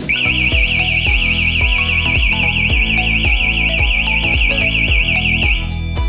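Wsdcam wireless vibration alarm set off by a knock, its siren giving a loud, fast electronic warble that swings up and down about seven times a second, then cutting off shortly before the end. Background music plays underneath.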